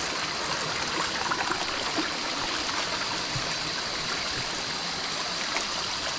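Small, shallow forest stream running steadily over rocks, with a faint high-pitched hum above it.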